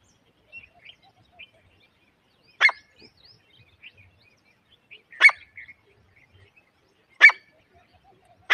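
Teetar partridge (a francolin) giving short, sharp calls, one every two to two-and-a-half seconds, with faint chirps in between.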